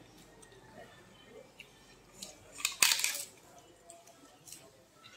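Crisp papad crackers being bitten and crunched, with one short, loud crackle about three seconds in and a few fainter crackles and clicks around it.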